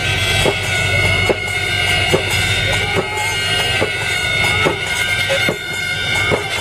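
Snake boat crew of dozens of oarsmen paddling in unison: a regular beat of paddle strokes splashing into the water, a little over one stroke a second, with men shouting along.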